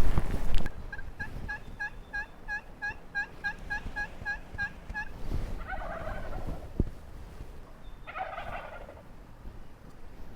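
Wild turkeys: a fast run of short, evenly spaced call notes, about four a second, for some four seconds, then a tom gobbling twice, about halfway through and again near the end.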